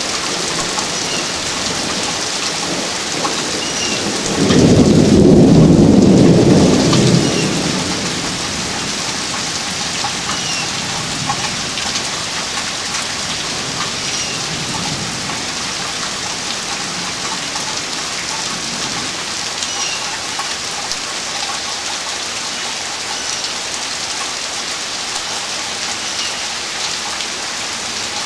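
Steady rain falling during a thunderstorm. A loud clap of thunder comes about four and a half seconds in and rumbles for a few seconds before fading back under the rain.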